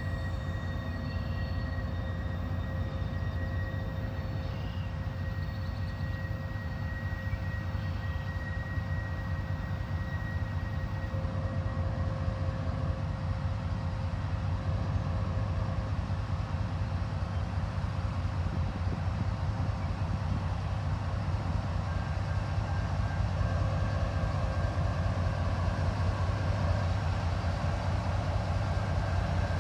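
CN diesel freight locomotive hauling a double-stack container train, its engine's low rumble growing steadily louder as it approaches. Wheel and rail noise builds near the end.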